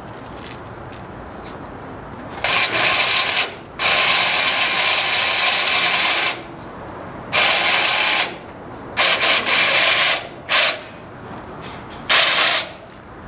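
Mechanical ratcheting from the hoist-and-strap lifting rig, in six separate bursts: the first begins about two and a half seconds in, the longest runs about two and a half seconds, and the last ends near the close.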